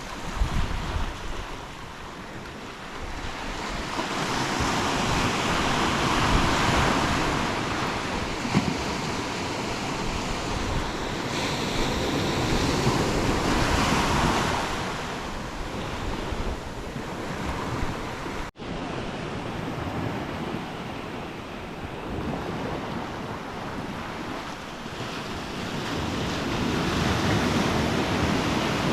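Ocean surf breaking on a beach, the rushing swelling and fading as each wave comes in, with some wind buffeting the microphone.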